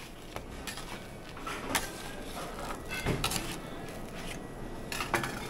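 A bench scraper and gloved hands working a sheet of cooling hard candy on a metal table: scattered scrapes and knocks, the clearest about two and three seconds in.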